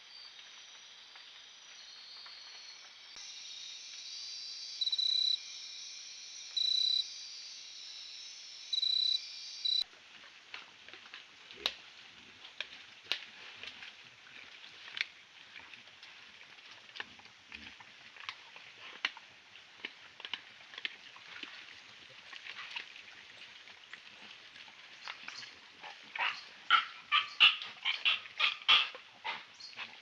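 Herd of white-lipped peccaries foraging in leaf litter at night: many sharp clicks and rustles, then a quick series of loud, short grunting calls near the end. Under it runs a steady high rainforest night chorus, and three loud, short pitched calls sound in the first third, before the peccaries.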